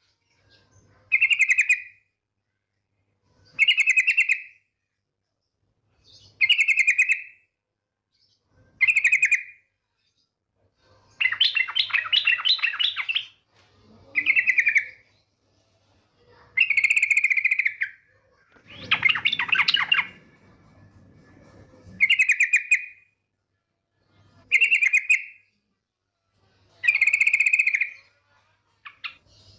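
Yellow-vented bulbul (trucukan) calling: short bubbly phrases repeated about every two and a half seconds, with a longer chattering run about 11 seconds in and a harsher, fuller burst near 19 seconds. It is offered as a female's call to draw a male into song.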